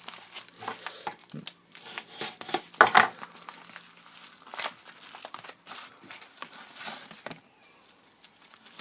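Package wrapping crinkling and tearing as a parcel is opened by hand, in irregular crackles with the loudest rip about three seconds in.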